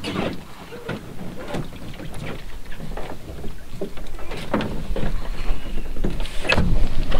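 Irregular light knocks and scrapes as a pack raft and its paddle are handled on a wooden dock and the raft is set on the water and boarded.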